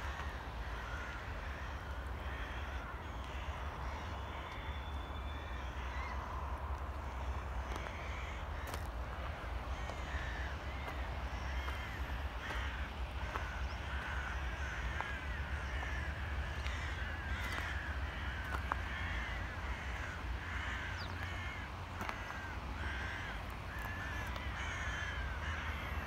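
A flock of birds calling: many short, repeated caw-like calls that grow busier about ten seconds in, over a low steady rumble.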